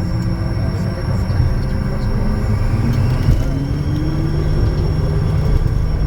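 Honeywell HTF7350 turbofan engines of a Bombardier Challenger 350 running at takeoff power under a loud, steady rumble, with thin steady tones above it. A tone rises in pitch between about three and five seconds in.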